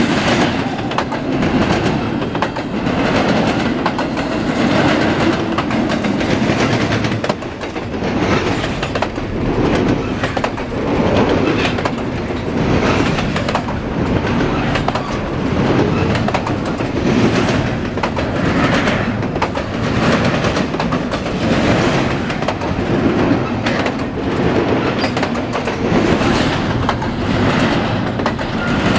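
Norfolk Southern double-stack intermodal freight train rolling past at close range: steel wheels clacking over the rails, the noise rising and falling in a regular rhythm as the well cars go by.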